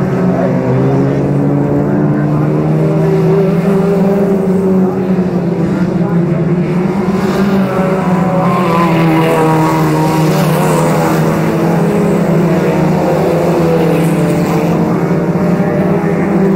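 Several autocross race cars' engines running as the cars lap the track. A steady low engine drone holds throughout, with engine notes rising and falling as cars go round, and one car passes closer about halfway through.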